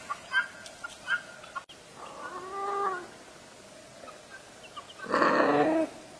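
A chick peeping in short, quick chirps during the first second, then a domestic cat meowing twice: one drawn-out meow about two seconds in and a louder one near the end.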